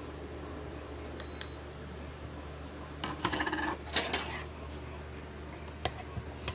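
Clear plastic lid of an electric milk frother lifted off and the jug handled on the counter: a short click with a brief high tone about a second in, then two bouts of light clattering around three and four seconds in, over a steady low hum.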